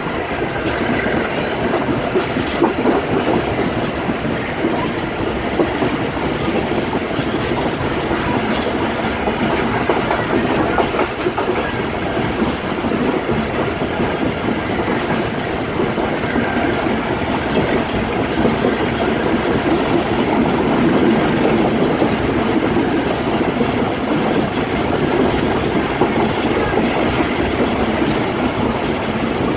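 Train wheels clattering steadily over the rail joints as the train runs along the track, with a constant rolling rumble.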